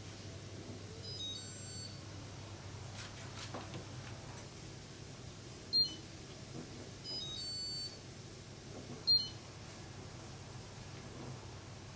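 Electrolux washing machine control panel beeping: a short run of electronic tones about a second in, a single clicky beep near six seconds, another run of tones about seven seconds in and another single beep near nine seconds, over a faint steady hum.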